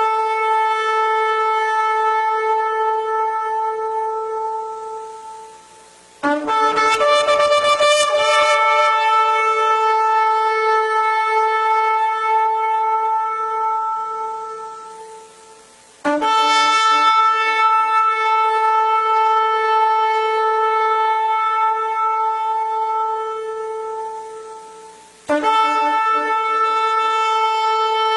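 Long horn blasts held on one steady note, with bright overtones. The first is already sounding and fades out; new blasts start sharply about six, sixteen and twenty-five seconds in, each held for several seconds before dying away.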